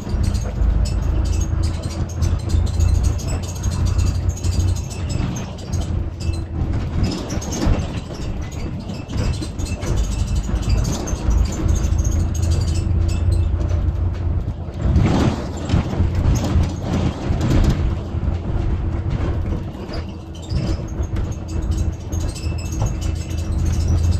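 Double-decker bus on the move, heard from inside: a low engine rumble and road noise, with a steady whine that comes and goes and scattered rattles of the bus's fittings. The noise grows louder for a few seconds past the middle.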